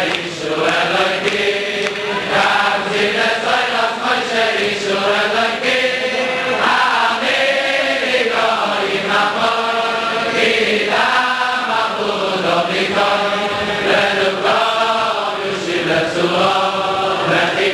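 A group of Hasidic men singing a slow, chant-like melody together, the pitch rising and falling in long phrases.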